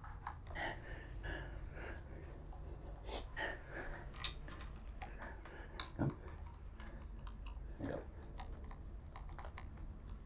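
A hand screwdriver tightening small Phillips-head screws into an ebike handlebar's LCD controller bracket: scattered light clicks and scrapes of the tool working the screws, with a couple of firmer knocks about six and eight seconds in.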